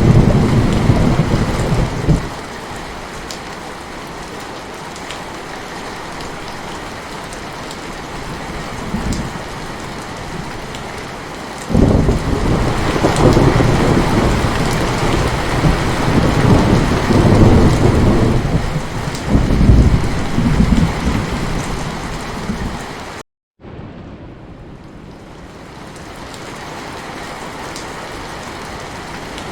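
Heavy rain falling steadily, with thunder: a short rumble at the start and a long rolling rumble from about twelve to twenty-two seconds in. The sound cuts out completely for a split second near the end, then the rain comes back quieter.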